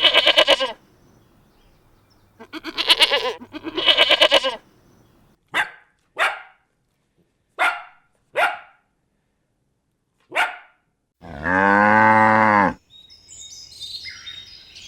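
Farm animals calling in turn: three quavering bleats of a sheep or goat kind, then five short dog barks spaced about a second apart, then one long, deep cow moo. Faint high chirping follows near the end.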